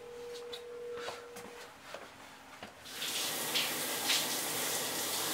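Shower running: water spraying steadily, coming in loud about three seconds in after a quieter stretch that holds a steady tone for its first second and a half or so.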